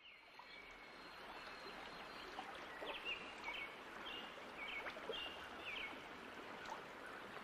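Faint nature ambience fading in: a steady rush of running water with short bird chirps repeating about twice a second.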